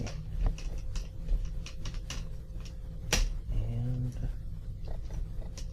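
Plastic laptop screen bezel being pressed back onto the lid, giving a few short sharp clicks as its clips snap into place, the loudest about three seconds in. A steady low hum runs underneath.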